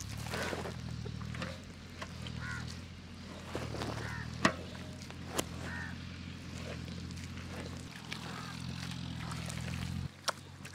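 A hand squishing and mixing a wet chicken liver cutlet mixture in a large metal bowl, with a few sharp clicks. Waterfowl honk now and then over a low steady drone that cuts off near the end.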